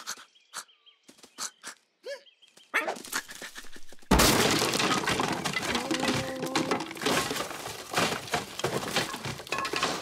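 Cartoon crash sound effect of a window breaking. A few light clicks come first, then a sudden loud smash about four seconds in, followed by several seconds of glass shattering and wood and debris clattering.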